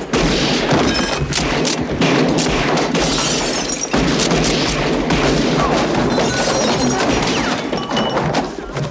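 Saloon gunfight in a film: many revolver shots fired in quick succession, with booms, thuds and crashes in between.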